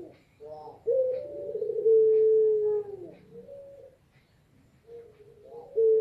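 Female puter pelung, a domestic Barbary dove breed, cooing to call a male: a short stuttering note, then one long drawn-out coo that drops in pitch as it ends, a short coo, a pause of about a second, and the stuttering start of the next coo near the end.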